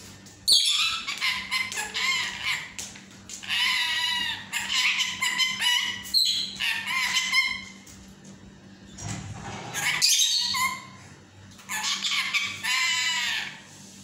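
Lutino (yellow) Indian ringneck parakeet chattering and squawking in a string of short bursts of shifting pitch, with brief pauses between them.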